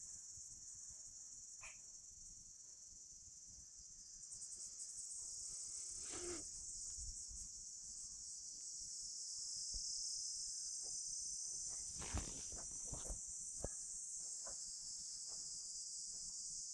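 Steady high-pitched chirring of insects, such as crickets or cicadas, growing stronger a few seconds in. A few short knocks stand out past the middle.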